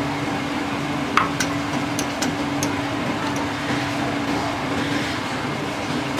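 Steady machine hum carrying a low steady tone, with a few light clinks of kitchenware, the clearest and ringing about a second in and fainter ones around two seconds in.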